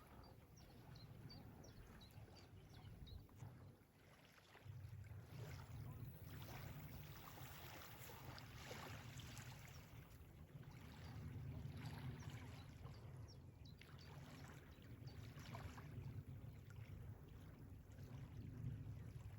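Near silence: faint outdoor ambience by the water, a steady low rumble that dips briefly around four seconds in, with a few faint high chirps in the first few seconds.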